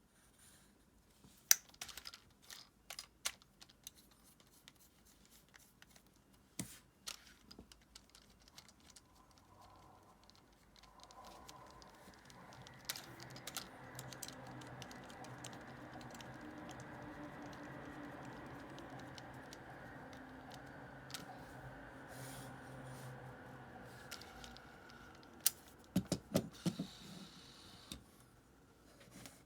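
Small metal reel parts clicking and tapping as they are handled, then an Abu Garcia Ambassadeur 5500C baitcasting reel's spool and gears spinning with a steady whir for about a dozen seconds, slowly fading, followed by a few more clicks.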